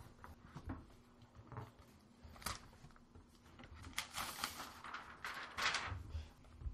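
Unboxing handling sounds: scattered light knocks and clicks from the box and lid, then the rustle of a clear plastic sleeve as a laptop is pulled out, about four seconds in and again near six.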